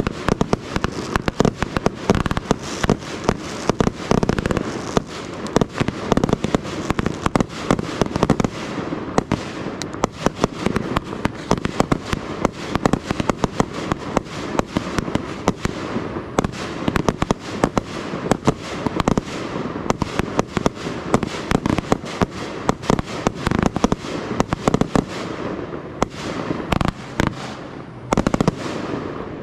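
Fireworks display: a rapid, unbroken run of bangs and crackles, many each second, thinning out just before the end.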